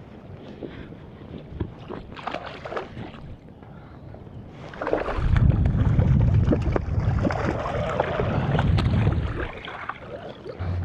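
Water splashing and sloshing at the water's edge, with small clicks, under wind rumbling on the microphone. The rumble turns heavy about five seconds in and eases near the end.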